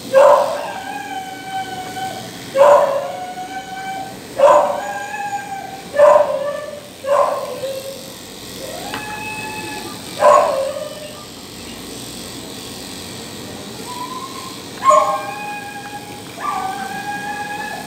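Small dog crying out over and over, high yelping howls, while its front paw is held for clipping. There are about eight drawn-out cries, each starting sharply and trailing off over about a second, with a lull in the middle.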